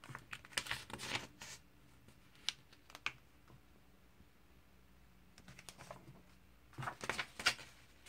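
Glossy comic-book pages being turned by hand: a burst of paper rustling and crisp clicks at the start, two single ticks a little later, then another rustling burst near the end as the next page is turned.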